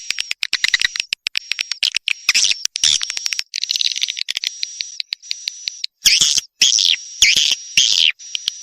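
Swiftlet (walet) calls: fast trains of clicks and high, twittering chirps in repeated bursts, a recorded swiftlet lure call of the kind played to draw swiftlets to nest.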